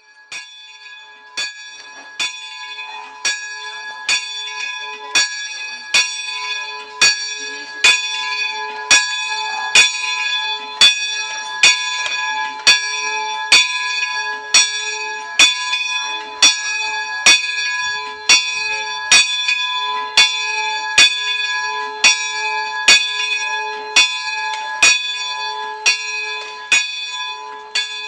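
A single church bell tuned to A-flat (A♭4), rung steadily, its clapper striking about once a second with each stroke ringing on into the next. The strokes grow louder over the first several seconds and ease off a little near the end.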